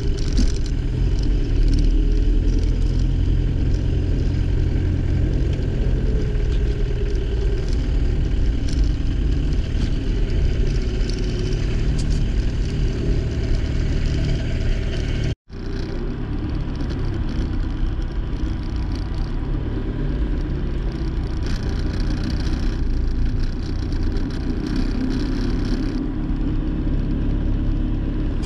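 Car engine and road noise while driving slowly in a queue: a steady low rumble that cuts out for a moment about halfway through.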